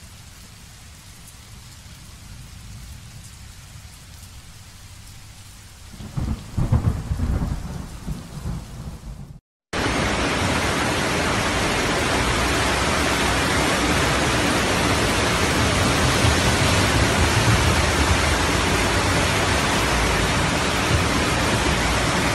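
A thunderstorm sound effect: quiet rain with a loud thunderclap rumbling for about three seconds, starting about six seconds in. It cuts off abruptly, and a steady, louder noise of heavy rain and rushing floodwater on a flooded street takes over.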